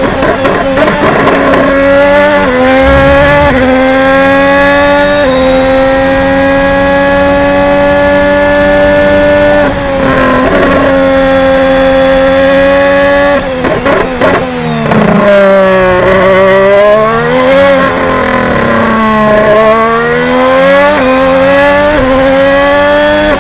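Honda 2019 Formula 1 turbocharged V6 engine at high revs. It changes up through the gears in quick steps in the first few seconds, then holds a high steady pitch. From about the middle on, the pitch falls and climbs again and again as it downshifts, slows and accelerates out of corners.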